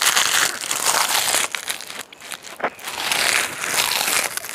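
Crisp roasted laver (gim) wrapped round rice crackling and crunching as it is bitten and chewed close to a clip-on microphone.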